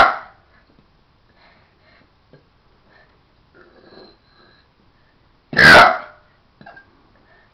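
A child's loud burps: the tail of one right at the start, then another loud burp lasting about half a second, about five and a half seconds in.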